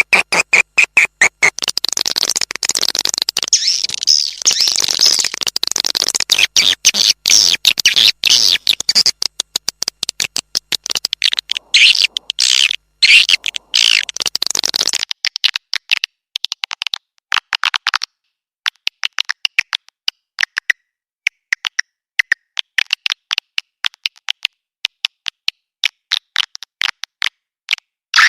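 Recorded swiftlet calls, a lure sound for swiftlet nest houses: a dense, rapid run of high chirps and twitters. About halfway through the sound thins, and the chirps come in short bursts with brief gaps.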